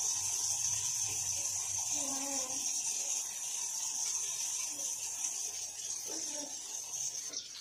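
A toothbrush scrubbing a toddler's teeth, a soft repeated rasping, over a steady high hiss.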